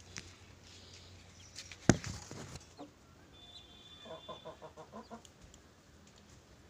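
A sharp knock about two seconds in, with brief rustling around it, then a broody hen gives a quick run of low clucks, about seven a second, starting about four seconds in.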